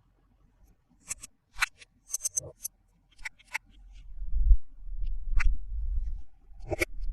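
Toy packaging handled during an unboxing: a run of short sharp plastic clicks and crackles, then a low rumbling handling noise about four seconds in, and more clicks near the end.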